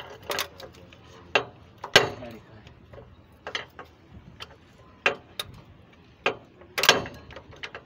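Pliers clicking and knocking against metal wire and fittings at a truck's wheel hub: a string of sharp, irregular metal clicks, loudest about two seconds in and again near the end.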